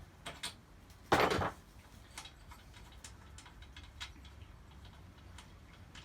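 Metal tool clicking and scraping as the spark plug is unscrewed from a small engine's cylinder head, with one short, louder rasp about a second in, then light scattered clicks.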